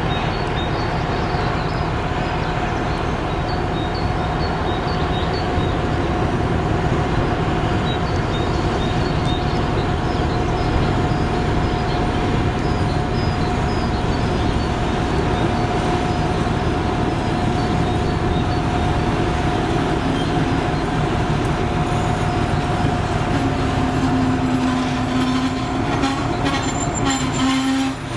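M62 diesel locomotive's two-stroke V12 engine running under load as it hauls a freight train past, a steady heavy rumble with a high steady whine, growing louder as it approaches. Over the last few seconds a low steady tone joins in, along with wheels clicking over the rail joints as the locomotive comes alongside.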